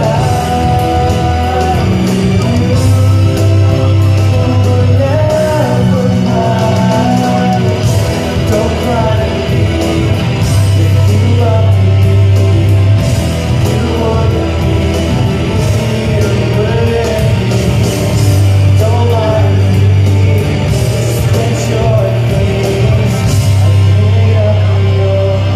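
Karaoke: a loud rock backing track played over the hall's PA speakers, with a man singing live into a handheld microphone.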